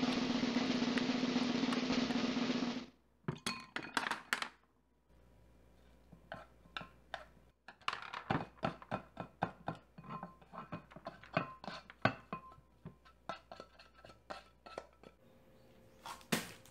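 A fork beating eggs in a glass bowl, a dense fast clatter that cuts off abruptly about three seconds in. Then a run of separate light clicks and taps as chopped vegetables are scraped off a wooden board into the bowl, with two louder knocks near the end.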